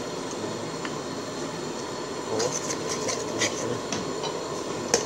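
Coconut milk at a rolling boil in an aluminium pot, bubbling steadily. From about halfway a metal spoon stirs curry paste in, scraping and clinking against the pot, with a sharp clink near the end.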